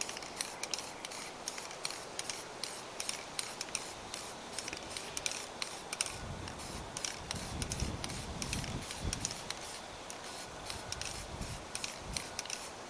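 Disc brake anti-squeal compound being applied to the backs of new brake pads: a run of short, quick scratchy strokes, a few a second, with a low rumble in the middle.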